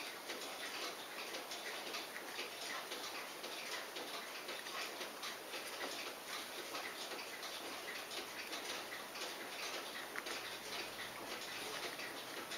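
Clockwork ticking rapidly and steadily, over a light background hiss.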